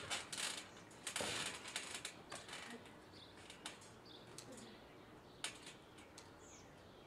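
Faint scattered clicks and rustling, loudest about one to two seconds in, with a few short high bird chirps.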